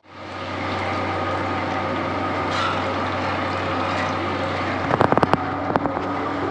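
Masala bondas deep-frying in a kadai of hot oil over a gas burner: a steady sizzle over a low hum. A quick run of metal clicks about five seconds in as the slotted ladle knocks against the pan.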